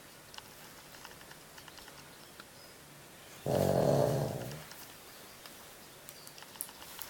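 An elderly Pekingese dog snoring: one snore about halfway through, starting suddenly and fading away over about a second, with quiet pauses on either side.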